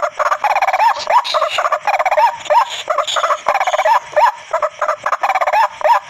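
White-breasted waterhen calls, a fast run of repeated harsh notes that rise and fall in pitch, played back through a small speaker as a lure.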